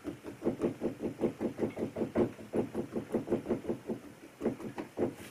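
A rapid run of soft knocks, about five a second, from a squeeze bottle of wood glue being applied to a timber block, with a few more near the end.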